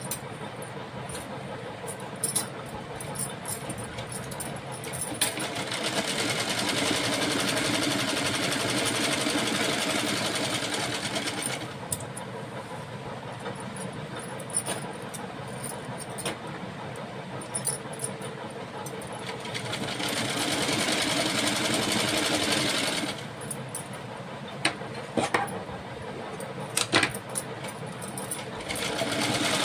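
Hirose sewing machine stitching a narrow fabric strip. It runs in two longer, louder stretches about a quarter and two thirds of the way through, and starts up again at the end, with quieter running and sharp clicks in between.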